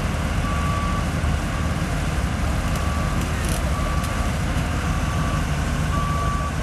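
Kobelco hydraulic excavator's diesel engine running with a steady low rumble, with a high-pitched travel/backup alarm beeping about once a second.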